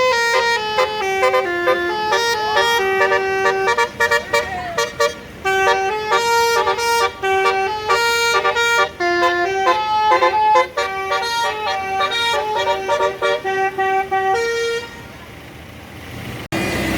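Basuri multi-tone musical bus horn playing a quick melody of short held notes that step up and down, stopping about fifteen seconds in. Quieter background noise follows.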